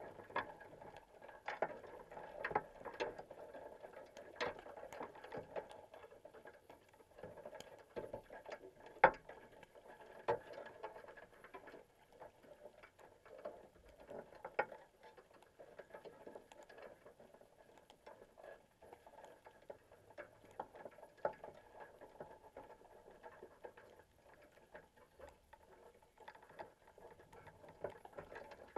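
Faint, irregular clicks and taps heard underwater through a camera's waterproof housing, as crabs clamber over a wire crab pot and its bait cage. A sharper knock comes about nine seconds in.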